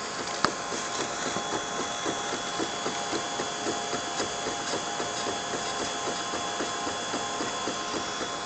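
Ultimaker Original 3D printer running a print: a steady whine from its motors with a regular ticking about four times a second as the print head moves over the part. One sharp click about half a second in.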